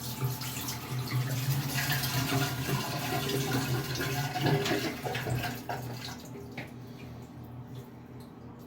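Water running from a tap into a sink, strongest for the first five seconds or so and then running more lightly.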